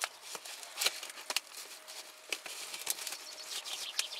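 Scattered clicks, crackles and scrapes of gloved hands handling a corrugated plastic drain pipe at a PVC tee fitting while connecting it.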